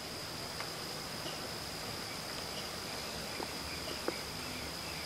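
Crickets trilling steadily at night, one continuous high-pitched note over a faint even hiss, with a couple of tiny clicks.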